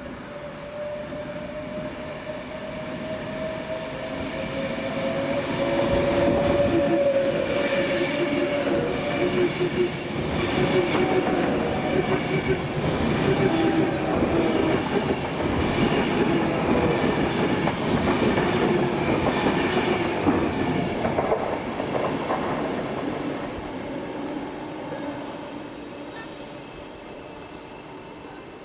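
A train passing: a hum that dips slightly in pitch grows louder over several seconds. It stays loud for about fifteen seconds, with wheels clacking over rail joints, then fades away.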